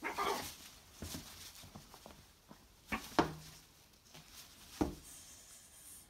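A blue-and-gold macaw making a few short, harsh calls, about four in all, the loudest about three seconds in.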